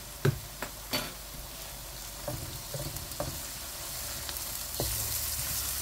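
Onions sizzling in hot oil in a nonstick wok while a wooden spatula stirs in ginger and garlic paste, knocking against the pan several times in the first few seconds. The sizzle grows louder about five seconds in.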